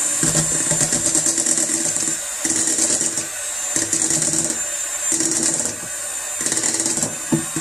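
Electric hand mixer running steadily, its beaters whipping cream-cheese cheesecake batter in a glass bowl. The high whir swells and fades about once a second as the beaters are moved around the bowl.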